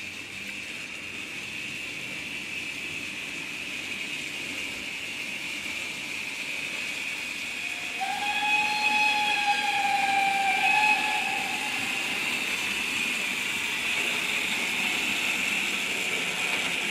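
Steam locomotive pulling into a station: a steady hiss of steam that slowly grows louder, with one whistle blast of about three and a half seconds starting about eight seconds in and sagging slightly in pitch before it stops.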